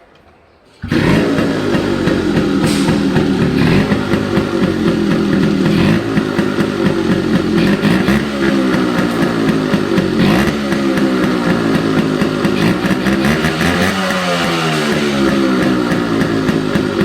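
1998 Yamaha RX135's two-stroke single-cylinder engine running, its pitch rising and falling as the throttle is blipped. The sound comes in abruptly about a second in.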